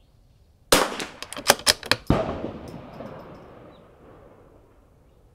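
Gunshots on a shooting range. A sharp crack about three quarters of a second in, then a quick string of further cracks over the next second and a last loud one about two seconds in, with echo trailing away over the next two seconds.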